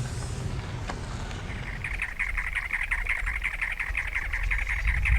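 A bird calling in a rapid, harsh chatter of many quick notes. It starts a little under two seconds in and runs on, over a low rumble.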